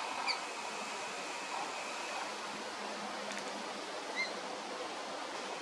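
Steady outdoor background hiss with two brief, faint high chirps, one just after the start and one about four seconds in.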